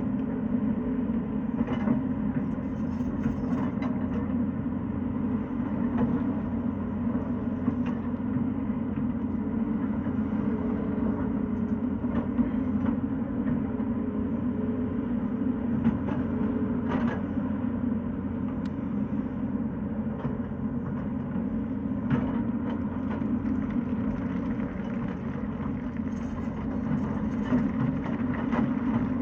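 Tata Hitachi excavator's diesel engine running steadily under work, with a few faint knocks over it.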